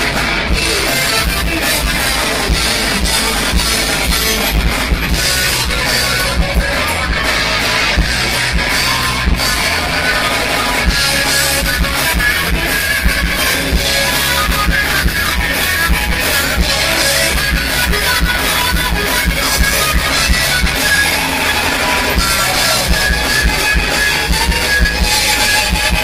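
Live rock band playing an instrumental passage: electric guitars over a drum kit, loud and steady, with the rough, thin sound of a phone's microphone.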